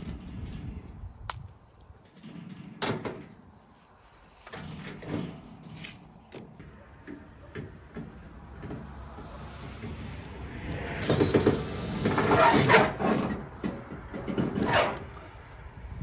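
Cordless power driver running in bursts, loudest about two-thirds of the way in, backing out the fixings that hold a metal distribution box to its posts, with scattered sharp clanks and knocks of metal.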